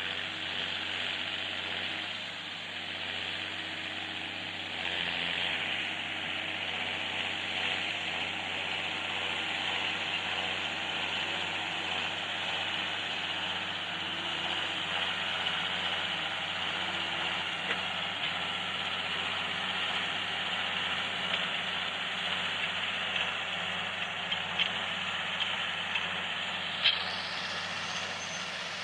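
John Deere tractor's diesel engine running steadily while ploughing, with a few sharp clicks near the end.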